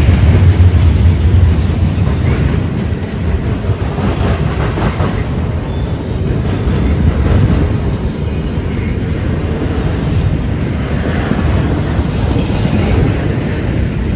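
Intermodal freight train rolling past: a steady, loud rumble of cars on the rails, heaviest in the first couple of seconds and then easing slightly.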